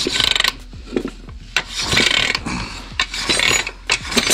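Cast-iron cylinder of an IZh Jupiter 5 two-stroke twin being worked over its ringless piston, metal rubbing and scraping in several bursts with sharp clicks. The piston slides freely in the bore without binding.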